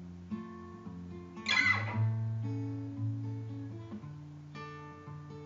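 Acoustic guitar playing a song intro: notes ringing on, with one brightly strummed chord about a second and a half in and a change of chord near the end.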